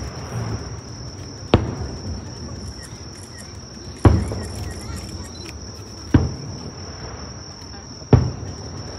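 Fireworks shells bursting at a distance: four booms about two seconds apart, each trailing off in an echoing rumble. A steady high-pitched drone of night insects runs underneath.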